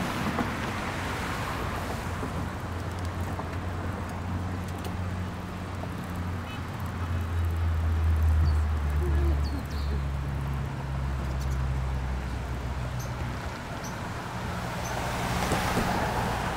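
Steady wind and road noise from riding a bicycle over a bridge, with a low hum underneath that swells about eight seconds in.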